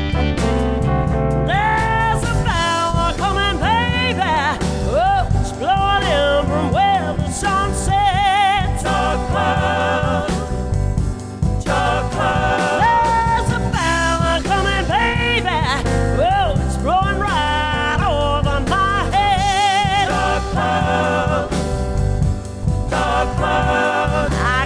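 Song music between verses: a lead melody with pitch bends and vibrato over a full band backing, with no words sung.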